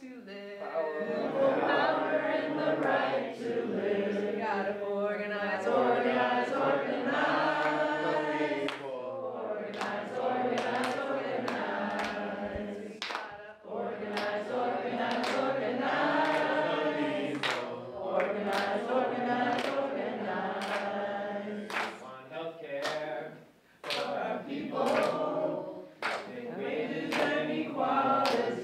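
A crowd of voices singing a protest song together in phrases with short breaks between them, with sharp hits now and then through the second half.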